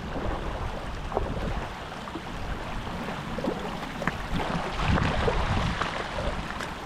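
Steady rush of a large river flowing, with wind rumbling on the microphone.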